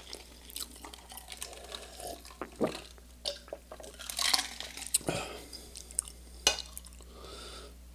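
Close-miked drinking from a glass, with gulps and wet mouth smacks around the middle, then a metal spoon clinking and scraping in a glass bowl of pasta in sauce near the end. Between them are a few scattered small clicks.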